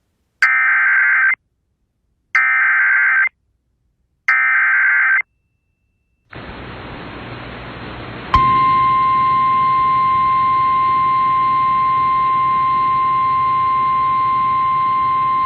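Three one-second bursts of EAS SAME header data tones with short silences between them, then radio static hiss about six seconds in. About eight seconds in, the steady 1050 Hz NOAA Weather Radio warning alarm tone starts and holds, signalling that a weather warning broadcast follows.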